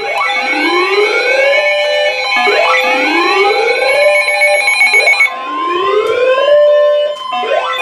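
Several NOAA weather alert radios sounding their alarms together for an incoming severe thunderstorm warning. A siren-like tone rises in pitch over about two seconds, again and again, over steady high beeping tones, and another steady alert tone joins about five seconds in.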